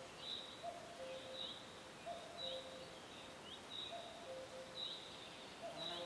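Forest ambience of birdsong: short high chirps with quick downward flicks, repeated over and over, with a lower call recurring about every second and a half over a steady hiss.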